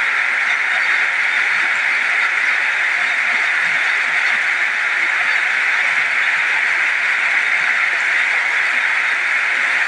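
Heavy rain pouring down in a steady, even hiss, splashing on a wet road and open ground.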